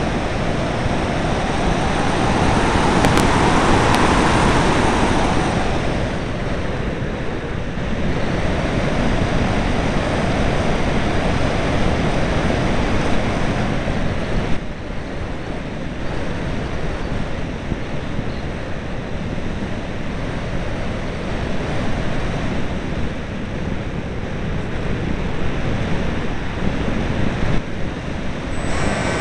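Wind rushing over the microphone of a camera mounted on a radio-controlled Floater-Jet model plane in flight. The rush swells a few seconds in and drops suddenly about halfway through.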